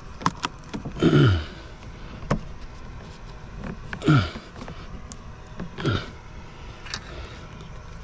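Gray PVC conduit being pressed and worked into position by gloved hands, giving three short creaking squeaks that fall in pitch, about a second, four seconds and six seconds in, with a few light clicks between them.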